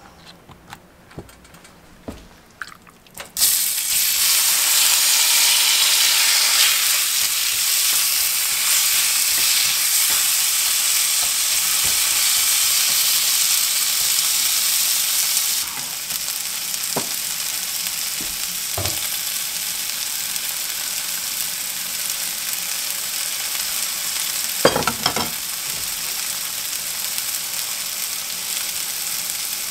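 Soft scraping of a silicone spatula stirring beaten eggs in a wooden bowl. About three seconds in, a loud steady sizzle of food frying in butter in a cast-iron pan starts abruptly. Halfway through it drops somewhat in level and carries on as beaten eggs and onions fry in a buttered cast-iron skillet, with a few light knocks of the spatula.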